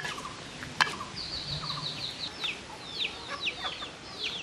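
A young chicken cheeping: a quick run of high chirps, then a string of short high peeps, each falling in pitch. Two sharp clinks of a ladle on the aluminium cooking pot come near the start.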